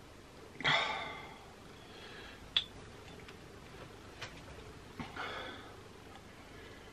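Stifled, breathy laughter in two short bursts, about a second in and again near the end, with a sharp click between them.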